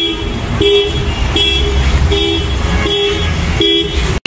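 An alarm sounding in short, evenly repeated horn-like blasts, about four every three seconds, over a low street rumble; it cuts off abruptly just before the end.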